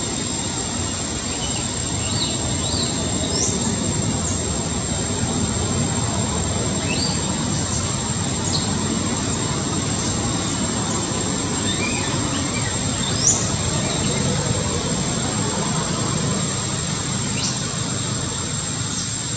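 Baby macaque giving short, high squeaking cries that sweep up in pitch, a dozen or so scattered irregularly, over a steady rumbling background noise and a constant high-pitched tone.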